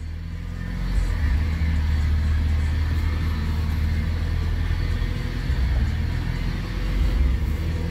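Vehicle engine running steadily as the vehicle moves slowly: a low, even drone.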